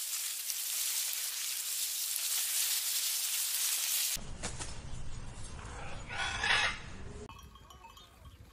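A steady high hiss for about four seconds, cut off suddenly. Then a low rumble and a single loud animal call about a second long. Near the end there are faint flock sounds of grazing sheep and goats with thin bird calls.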